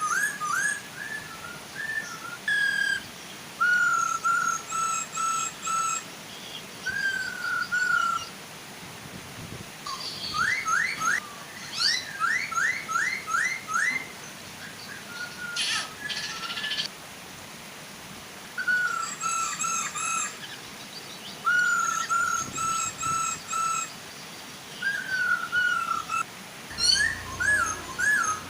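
Black-throated laughingthrushes (poksay hongkong) singing loud, clear whistled phrases, some held notes and some runs of quick rising notes, over a soft steady waterfall hiss.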